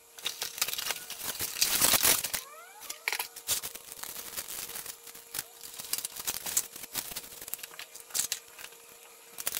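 Packaging being handled as a boxed toy RC helicopter is unpacked: the cardboard box and its tray rustled and crinkled, and a twist tie pulled off the helicopter. The irregular rustles and clicks are loudest about two seconds in.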